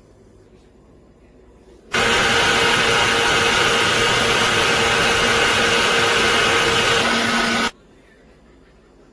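NutriBullet blender motor running, blending chopped fruit and vegetables into juice. It starts suddenly about two seconds in, runs steadily for nearly six seconds and cuts off abruptly.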